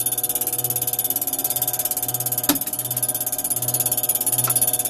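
Electric drive motor and gearing of a boat lift running steadily as it raises the boat toward its top limit, with a fast even ticking over a low hum that swells about once a second. A single sharp click comes about halfway through.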